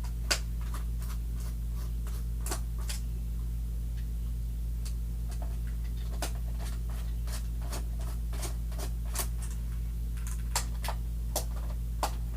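Phillips screwdriver backing screws out of a Roomba robot vacuum's plastic underside: scattered small clicks and scrapes of the tool and screws, over a steady low hum.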